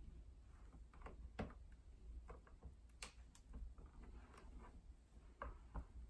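Faint, scattered plastic clicks and taps from the brush-bar end cap of a Dyson V7 Motorhead cleaner head, which is being handled and turned toward its unlocked position.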